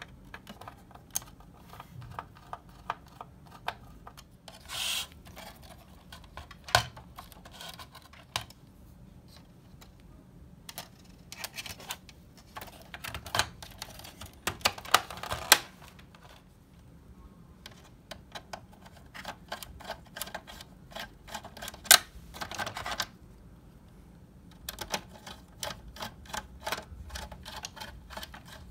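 Irregular clicks, taps and light rattles of the plastic housing and small parts of a Philips portable CD player radio being handled and worked with a screwdriver during disassembly, with a short rasping noise about five seconds in.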